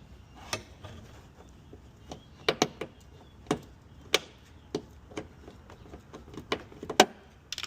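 Irregular sharp clicks and knocks of hand tools and fasteners on the car's front end, as a loose bumper screw is worked out. The loudest knock comes near the end.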